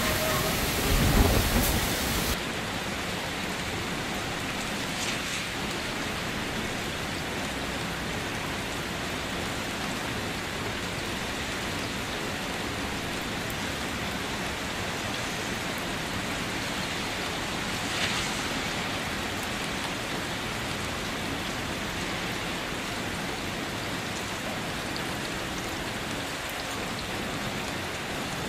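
Heavy rain falling, a steady, even hiss. In the first two seconds there is a louder low rumble that fits thunder or wind.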